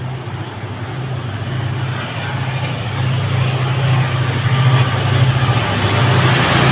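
Diesel locomotive approaching, its engine a steady low hum growing louder as it draws near.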